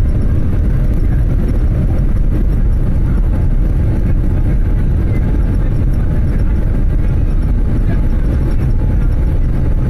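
Boeing 787-8 Dreamliner's engines and the rumble of the takeoff roll heard inside the cabin over the wing: a loud, steady noise, deepest in the low end.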